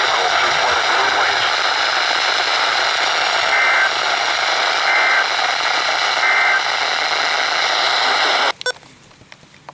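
NOAA Weather Radio reception full of hiss and static, broken by three short two-tone data bursts a bit over a second apart: the SAME End-of-Message code that closes an Emergency Alert System warning. The signal cuts off suddenly near the end, leaving a few faint clicks.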